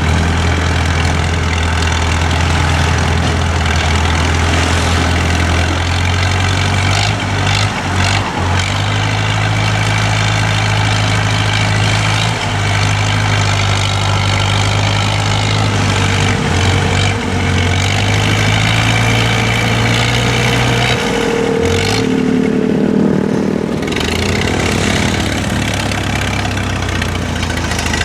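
Heavy diesel engine of earth-moving machinery running steadily. A higher whine joins in for a few seconds past the middle.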